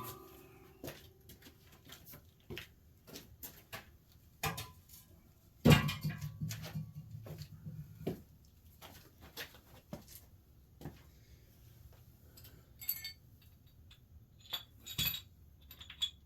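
Metal parts of a big-block engine under teardown handled and set down: scattered clinks and knocks of steel and cast iron, with one heavier knock and a short ring about six seconds in.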